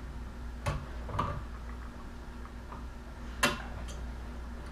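Sharp clicks and taps from a light switch and its wires being handled: four of them, the loudest about three and a half seconds in, over a steady low hum.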